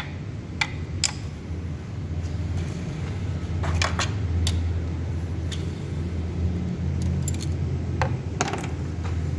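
Scattered metallic clinks and taps of hand tools against parts, over a steady low hum.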